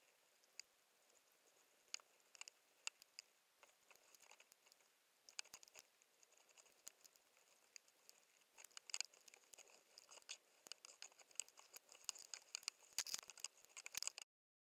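Faint, irregular crackling clicks and scratches of marsh reeds brushing and scraping against a kayak and its camera mount, growing denser and louder over the last few seconds as the boat pushes into the reeds, then cutting off abruptly.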